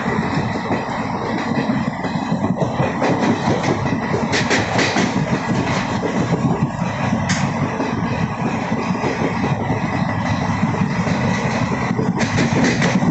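Alappuzha–Dhanbad Express passenger train running along the track, heard from on board: a steady loud rumble of the moving coach, with short bursts of wheel-and-rail clatter about four seconds in and again near the end.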